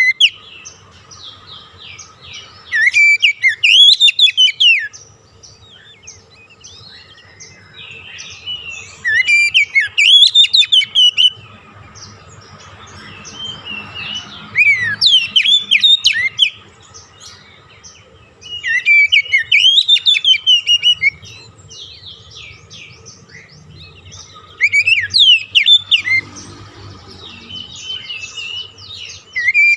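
Oriental magpie-robin (kacer) song: loud bursts of rapid, varied whistled phrases about every five seconds, each lasting two to three seconds, with softer chirps between.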